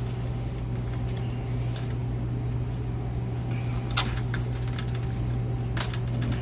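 Steady low hum, with a few light clicks and taps as hooks and fishing line are handled in a plastic bucket.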